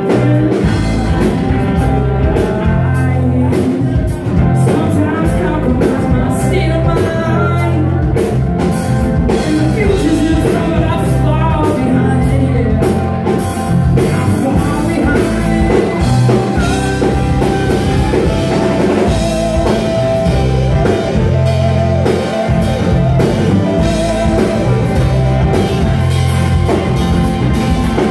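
Live band playing loudly in a club: electric guitar over a steady drum-kit beat through the PA.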